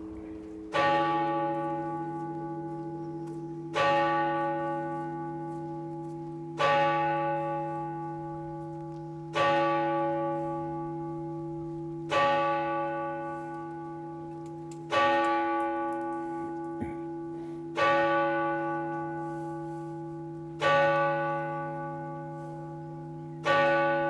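Church tower bell striking the hour nine times, one stroke about every three seconds, each stroke ringing on and fading under the next: the bell tolling nine o'clock.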